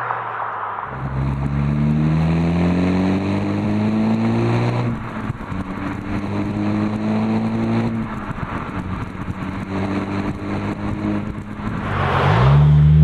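Exhaust note of a 2013 Skoda Octavia RS 2.0 TSI turbocharged four-cylinder through a Supersprint catback system with centre pipe, Y-pipe and twin mufflers, heard at the tailpipe as the car accelerates hard. The pitch climbs through three gears, dropping at the upshifts about 5 and 8 seconds in, and the sound grows louder near the end.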